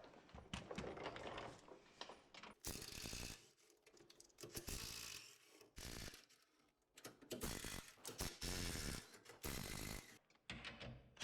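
Hand ratchet wrench clicking in repeated short bursts, a bolt being worked loose stroke by stroke.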